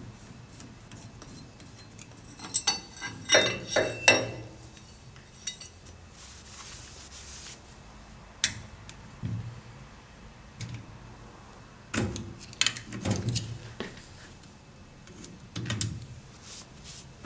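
Metal parts and tools being handled, with several short bursts of sharp metallic clinks and knocks. The loudest cluster comes about three seconds in, with more around the middle and near the end.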